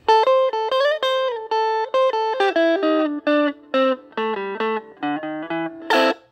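Outro music: a guitar playing a melody of short plucked notes, ending on a brief louder chord just before it cuts off.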